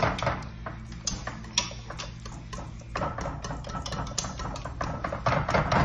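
Metal wire whisk clinking and scraping against a stainless steel pot as it mashes boiled potatoes, breaking up the chunks: a run of quick, irregular metal taps that gets busier and louder near the end.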